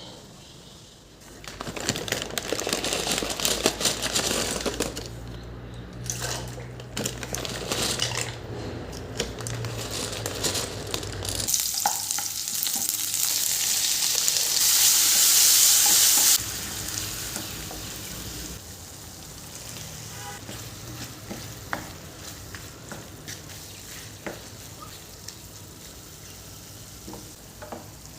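Food frying in a pan and being stirred, with a low steady hum underneath for the first half. Partway through the sizzling turns much louder for about five seconds, then drops back to a quieter sizzle with a few light clicks of the stirring utensil.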